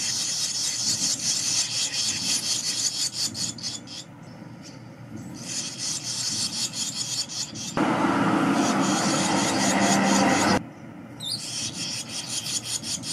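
Barn swallow nestlings, about two weeks old, begging in a rapid raspy chorus of many quick calls as a parent comes to the nest to feed them. The calling comes in bouts, dropping away briefly about four seconds in and again near the end. A louder, lower noise joins for a few seconds past the middle.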